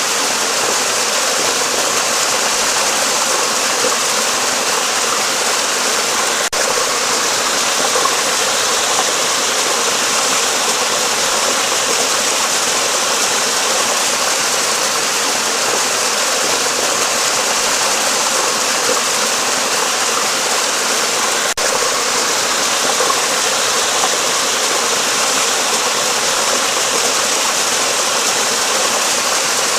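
Steady rushing of flowing stream water, even and unbroken apart from two momentary dropouts, about six seconds in and again past twenty seconds.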